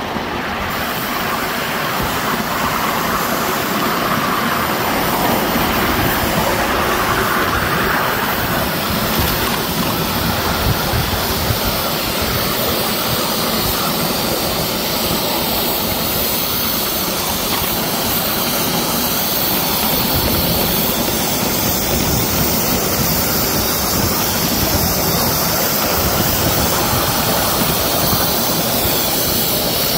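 5-inch gauge live-steam model of a GWR 15xx pannier tank locomotive running along the track: a steady rush of steam and running noise from the engine and its wheels on the rails.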